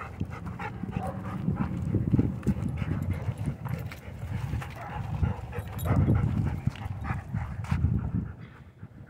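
Dogs panting and moving about close by, with irregular scuffs and footfalls over a low, uneven rumble.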